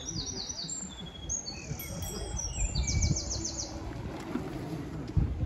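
Small songbirds singing: high, quick chirps and short rapid trills, over a low background rumble.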